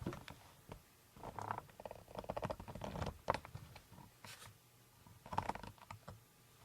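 Handling noise: bursts of scratching, rustling and light knocks while the camera is moved closer to the work.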